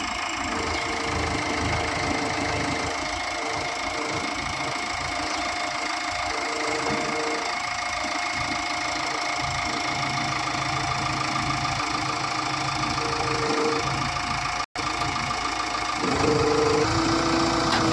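JCB 3DX backhoe loader's diesel engine running steadily, with a humming tone that comes and goes over it. The sound drops out for an instant about three-quarters of the way through, then runs louder near the end.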